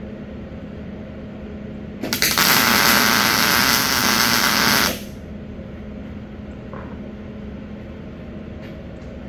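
Arc welding: a single tack weld, a loud, even buzzing crackle that starts about two seconds in and lasts about three seconds, fixing a steel collector box to a smoker's tank. A steady low shop hum runs underneath.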